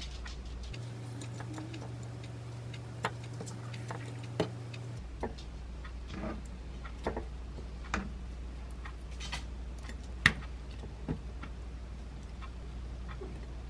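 Scattered light clicks and taps as pieces of sweet potato, cherry tomato and torn lettuce are set by hand into a ceramic bowl, over a steady low hum. The sharpest click comes about ten seconds in.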